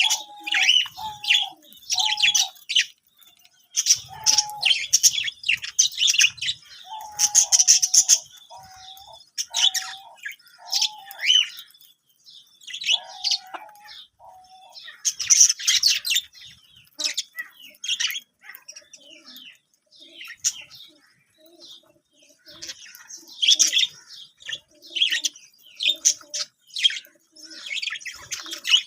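A flock of budgerigars chirping and warbling in irregular, overlapping bursts. In the first half a series of short, lower-pitched notes repeats about once a second.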